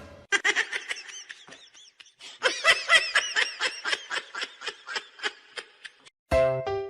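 High-pitched laughter, a quick run of short 'ha' sounds, about four or five a second, fainter at first and louder from about two seconds in. Piano music starts near the end.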